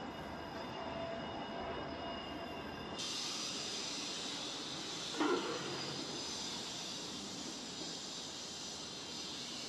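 Steady outdoor city background noise with several high, steady whining tones. The sound changes abruptly about three seconds in, and a brief louder sound comes about five seconds in.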